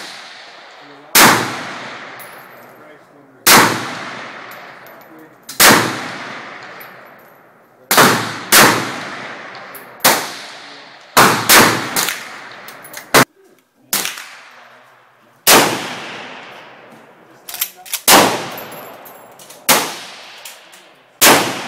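Rifle shots fired one at a time: about a dozen loud cracks, mostly a second or two apart with a few in quick pairs, each trailing off in a long echo. Most come from a Czech VZ-58 Sporter semi-automatic rifle in 7.62×39mm, and the last ones from a 1957 Winchester Model 94 lever-action in .30-30.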